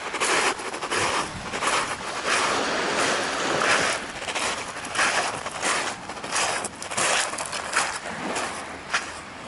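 Footsteps crunching on a shingle (pebble) beach at a walking pace, about two steps a second, over a steady wash of surf.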